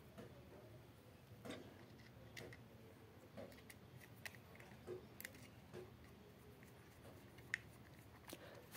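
Near silence with scattered faint clicks and light taps of small objects being handled, and one sharper click near the end.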